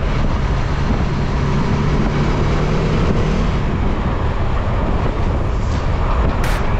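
Motorcycle running steadily at riding speed, its engine hum under a heavy rush of wind on the camera's microphone.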